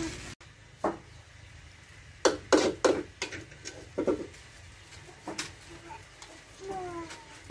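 Metal spatula knocking and scraping against a wok as stir-fried noodles are served out, a string of sharp taps and clinks. A few short rising animal calls come near the end.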